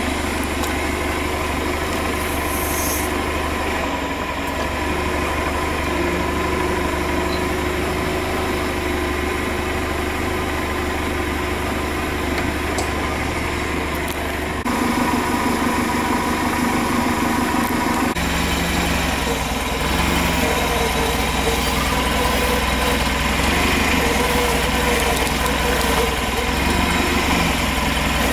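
Nissan forklift's engine running steadily, a constant drone that gets a little louder about halfway through.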